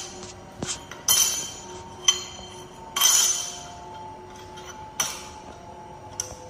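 Background music: bell-like chiming hits about a second apart, each ringing out briefly, over sustained notes.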